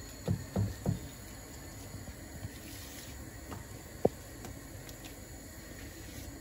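Silicone spatula spreading thick batter in a glass baking dish: three soft knocks in quick succession near the start and one sharp tap on the glass about four seconds in, over a low steady background noise.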